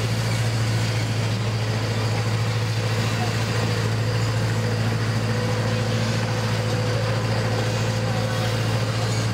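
Chance Rides miniature train locomotive running at a steady pace, a continuous low drone with a steady hum from the engine and running gear as heard from an open passenger car behind it.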